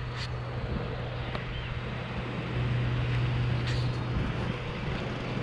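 Steady low motor hum over a noisy outdoor background, louder for a second or so in the middle.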